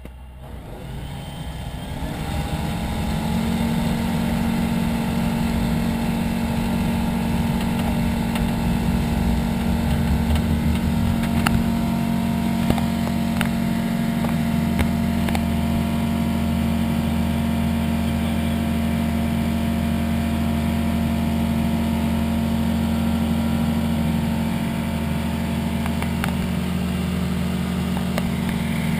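Pipistrel Sinus motorglider's engine and propeller, heard from inside the cockpit, running up to takeoff power over the first few seconds. It then runs steadily at that power through the takeoff roll and climb.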